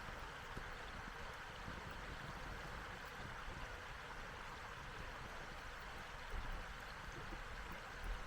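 Wood fire burning with a steady hiss and a few faint crackles, while wind rumbles on the microphone, gusting about six seconds in and again near the end.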